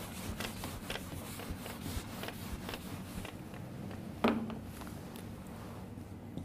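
Marker pen writing on a whiteboard: a run of short stroke sounds and taps as characters are drawn, with one louder knock about four seconds in.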